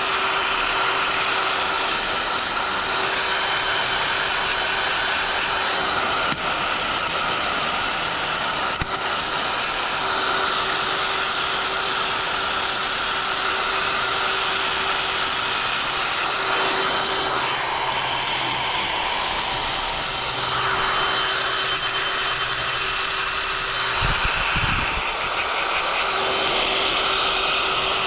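Cordless DeWalt brushless drill spinning a wire brush against a Briggs and Stratton single-cylinder cylinder head, a steady scouring hiss over the drill motor's whine while the head is cleaned. The whine drops out and comes back a few times.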